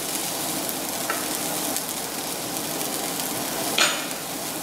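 Caramelized onions and fresh ginger sizzling in oil in a nonstick pan: a steady frying hiss, with one brief louder sound near the end.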